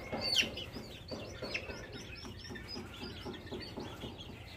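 A flock of young ornamental chicks peeping: many short chirps that slide downward, several a second, with a louder one near the start.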